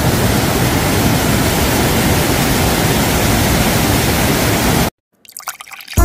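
Rushing water of mountain-stream waterfalls and cascades, a loud, steady rush. It cuts off suddenly near the end, leaving a few faint clicks.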